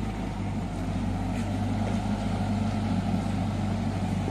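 Kubota U50 mini excavator's diesel engine running steadily at a constant speed, with no breaker hammering.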